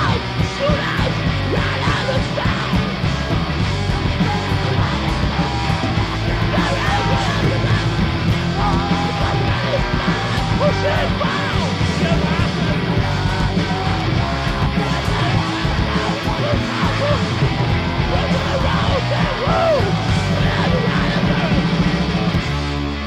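Garage-punk band playing live: two distorted electric guitars, bass and drums at full tilt. Near the end the full band drops away and the playing thins out.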